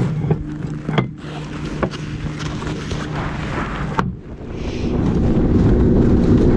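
A boat motor running steadily at low speed with a few sharp knocks. About four seconds in it changes abruptly to a louder boat running underway, with a rough rumble of motor, hull and wind that builds up.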